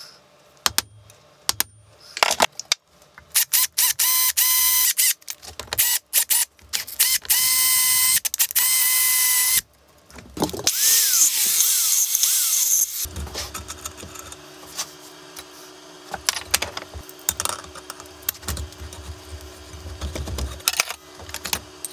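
Several sharp metal taps, then a cordless drill running in bursts of one to two seconds with a steady whine. A rougher rattling spell follows, and then scattered clicks of metal parts being handled over a low hum.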